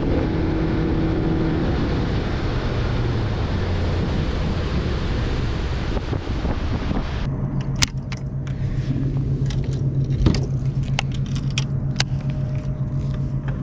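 A bass boat's outboard motor runs with rushing wind and water noise for about seven seconds. Then the sound changes to a steady low hum with a run of sharp clicks and rattles from a baitcasting reel and spinnerbait being handled.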